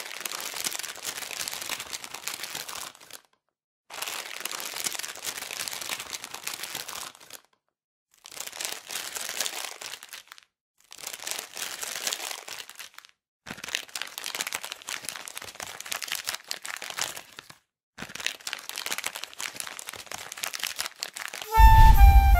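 Foil-lined potato chip bag crinkling as it is handled, in six bouts of a few seconds each with short silent gaps between them. Near the end there is a loud low thump, then clarinet notes begin.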